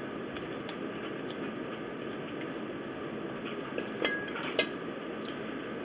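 Metal fork clinking and scraping on a ceramic dinner plate, with two sharper clinks about four seconds in, the first ringing briefly. Chewing and small mouth clicks over steady room hiss.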